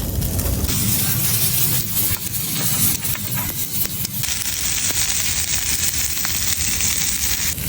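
Pork sausages sizzling in a metal hanging pan over a campfire, a steady frying hiss with faint crackles. The hiss shifts in tone abruptly about a second in and again around four seconds in.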